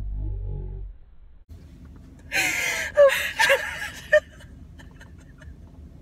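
Women laughing hard: breathy, gasping laughter with high squealing rises, starting about two seconds in and lasting about two seconds. A brief low rumble comes at the start.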